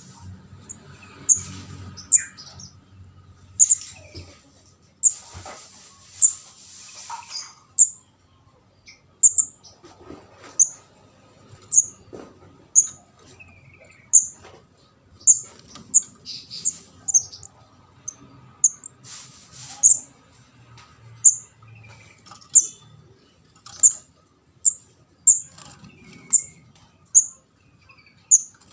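Juvenile kemade (ndas abang) bird calling: short, sharp, very high chirps repeated about once a second, the young bird's call used as a lure to catch birds.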